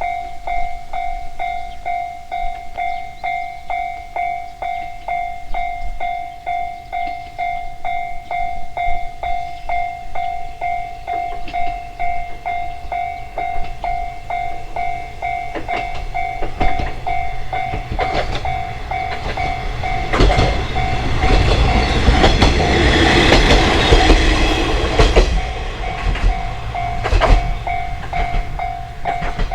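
Japanese level-crossing warning bell ringing over and over with a steady electronic 'kan-kan' tone. About halfway through a train passes, its wheels clacking over rail joints, loudest for several seconds before fading while the bell keeps ringing.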